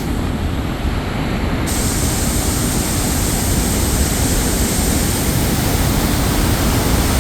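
Rhine Falls, a large high-volume waterfall, giving a loud, steady rushing roar of falling water.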